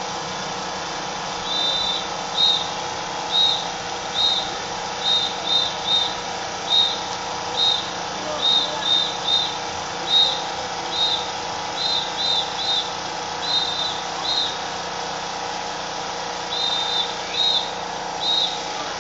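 A whistle blown in short, sharp blasts, singly or in quick groups of two or three, about one to two a second, with a pause of about two seconds near the end. These are typical of a drill leader's whistle keeping time for a marching drill. A steady background hum runs underneath.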